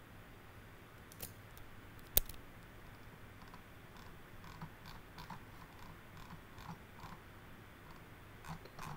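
Computer mouse clicking while working in CAD software: one sharp click about two seconds in, with a fainter click before it and a scattering of soft taps later, over low room noise.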